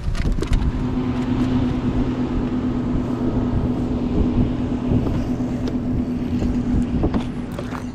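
A boat motor humming steadily, starting just after the beginning and cutting off near the end, with wind buffeting the microphone and a few knocks on the hull.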